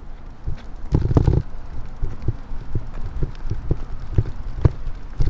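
Footsteps on pavement at a steady walking pace, about two a second, from someone walking a pushed bicycle, with a louder clatter about a second in.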